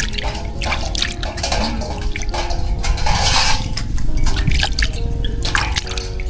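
Water splashing and dripping in irregular bursts, with many small clicks.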